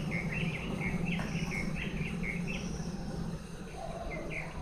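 Small birds chirping in a quick run of short calls, several a second, over a steady low hum.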